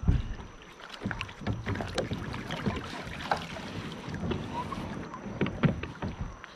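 Water splashing and rushing against a kayak's hull as it moves through fast water, with scattered knocks and clunks of the boat and gear and a heavy thump at the start.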